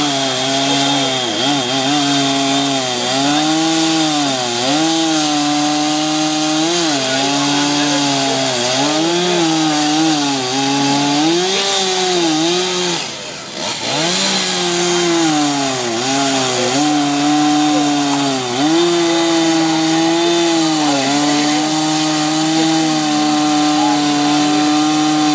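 Petrol two-stroke chainsaw running at high revs as it carves into an upright log. The engine note sags again and again as the chain bites into the wood and picks back up. About halfway through it dips briefly, then comes back up to speed.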